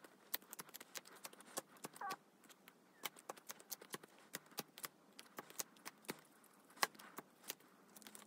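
Light, irregular clicks and taps of plastic-sleeved photocards being set down and shuffled into order on a binder page, with a short squeak about two seconds in.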